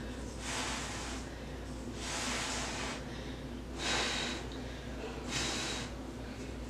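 A person blowing on hot depilatory wax on a wooden spatula to cool it so it won't burn her lip, four breathy puffs about a second and a half apart.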